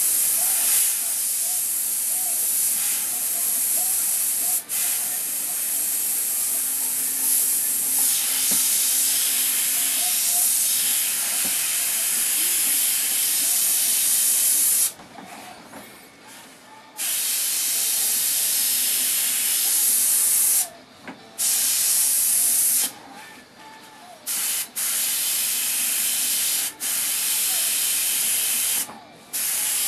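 Airbrush spraying paint with a steady high hiss that stops and restarts several times, for about two seconds at the longest about halfway through and for shorter gaps after.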